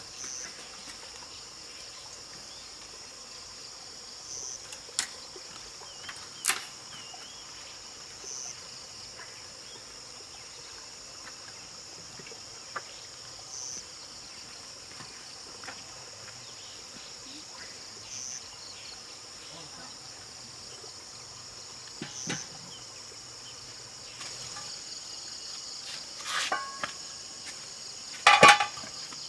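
Steady high-pitched insect chorus, swelling slightly about every four seconds, with a few sharp clicks and a loud clatter of knocks near the end.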